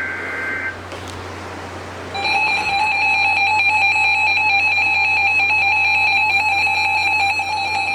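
Emergency Alert System broadcast: the tail of a SAME digital header burst, a harsh two-pitch warble, cuts off just under a second in. About two seconds in, a loud, steady electronic attention tone begins and holds, the signal that a new warning is about to be read.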